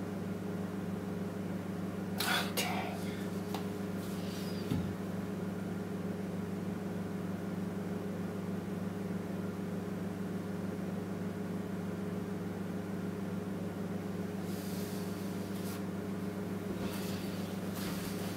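A steady low electrical hum, with a few short rustling noises over it.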